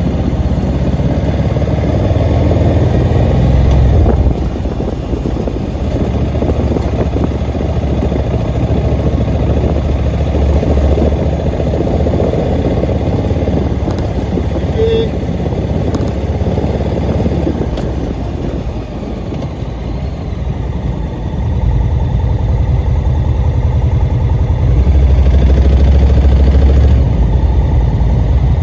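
A vehicle's engine running with low road rumble. The sound dips about two-thirds of the way through and grows louder near the end.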